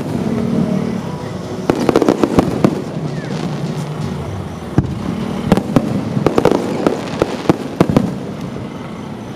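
Aerial firework shells bursting overhead: many sharp bangs coming in several quick volleys, bunched about two, six and eight seconds in.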